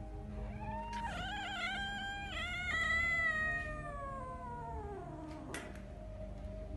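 A domestic cat's long yowl that wavers, then slides down in pitch and fades over about four seconds. A sharp click follows just after the yowl ends.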